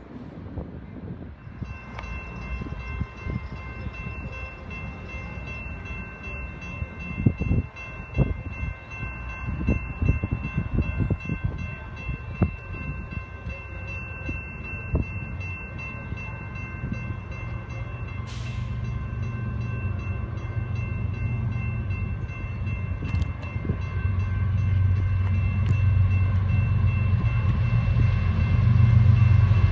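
Grade-crossing warning bells ringing steadily from about two seconds in, with scattered clacks of train wheels over rail joints early on. Near the end the low rumble of an approaching BNSF freight's diesel locomotives grows steadily louder.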